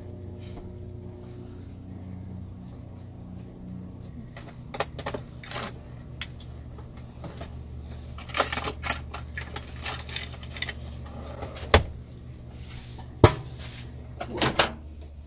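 Microwave oven running with a steady low hum while it heats butter, with scattered sharp clicks and knocks, the loudest near the end.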